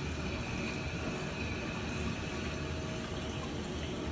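Water rushing steadily through a urinal's newly replaced flush valve as the urinal flushes, an even hiss.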